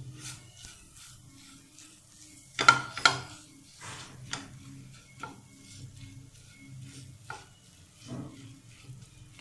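A slotted spatula stirring and scraping crushed motichoor laddu crumbs in ghee in a nonstick frying pan, in a run of short strokes with two louder knocks against the pan about two and a half to three seconds in. A faint sizzle of ghee on a low flame runs under it.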